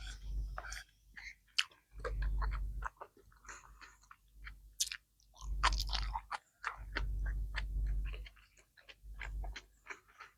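A person chewing and biting sushi and seaweed salad close to the microphone: many short wet clicks and crunches over repeated spells of low thudding from the chewing.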